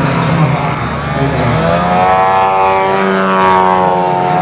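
Engine and propeller of a radio-controlled scale PZL Wilga tow plane in flight. The pitch climbs over the first few seconds, then holds steady.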